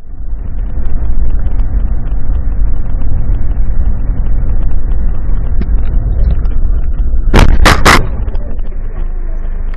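Dash-cam recording of a car driving: a steady low road and engine rumble, interrupted by three loud bangs in quick succession about seven and a half seconds in.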